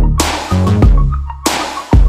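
Electronic background music with a heavy beat: deep bass, a kick and snare pattern about twice a second, and short repeated high notes.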